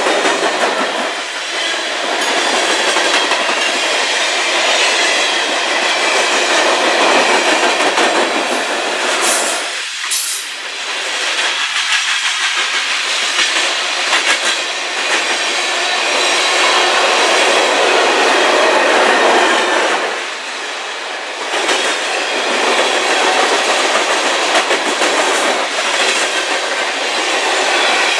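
CN freight train of tank cars rolling past at speed: a loud, steady rush and rattle of steel wheels on rail, dipping briefly twice.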